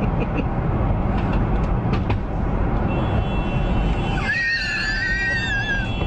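Steady road and engine rumble inside a moving car. About three seconds in, the car ahead's horn begins sounding steadily because its brake pedal has been wired to the horn, so it goes off whenever the driver brakes. Just over four seconds in, a high wavering squeal rises over it for about a second and a half.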